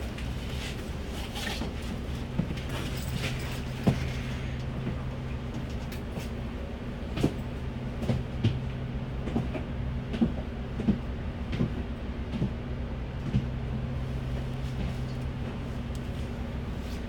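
Heard from inside a KMB bus: a steady low engine hum, with a run of sharp knocks and rattles, about one a second, through the middle stretch.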